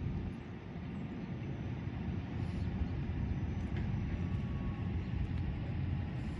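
Steady low rumbling outdoor background noise, with one sharp click right at the start.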